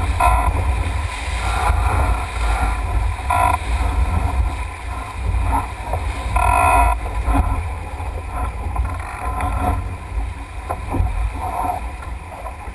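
Rush and splash of water along the hull of a Melges 24 sailboat sailing fast under gennaker, with wind buffeting the microphone as a heavy rumble that swells and eases.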